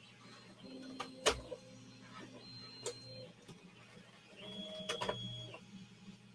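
Small desktop 3D printer running a print: its stepper motors whine in short steady tones that jump between pitches as the print head moves, over the steady hum of the hotend cooling fan. A few sharp clicks, the loudest about a second in.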